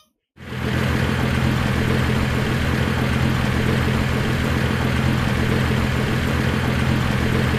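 Engine idling steadily, a continuous low rumble laid over toy-truck footage as a sound effect. It starts about half a second in and cuts off abruptly.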